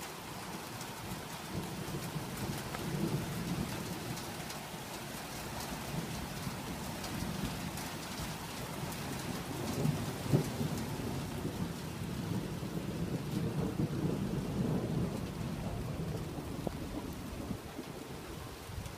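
Steady rain falling on garden plants and soil, with a low rumble that swells and fades through it and a single thump about ten seconds in.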